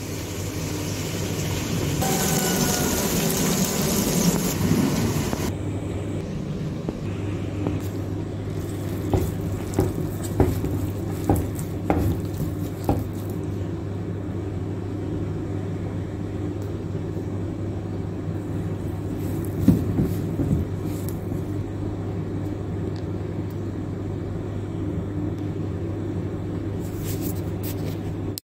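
Steady low motor hum throughout, with a few soft knocks and clicks as hands knead roti dough in a bowl. A hiss comes in about two seconds in and lasts a few seconds.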